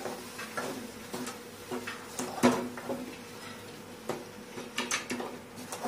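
Metal spoon scraping and knocking against an aluminium kadhai while a thick onion-coconut masala paste is stirred and fried in oil, with irregular clatters about every half second. This is the stage of frying the masala until the oil separates.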